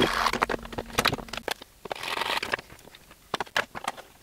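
A file rasping on a 3D-printed plastic part in two short spells of strokes, near the start and around two seconds in, with scattered clicks and knocks as the part and metal pieces are handled.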